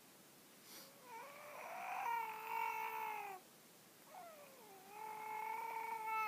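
Cat yowling: two long, drawn-out meows, each about two seconds, whose pitch bends at the start, then holds and falls away at the end.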